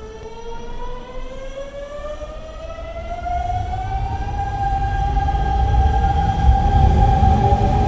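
Hanshin electric train pulling away, its traction motors whining in a tone that rises steadily in pitch for about five seconds and then levels off, over a growing low rumble of the train running on the rails.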